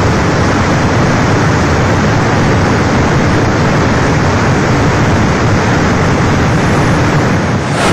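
Steady, loud rushing noise of rain and floodwater across a flooded road.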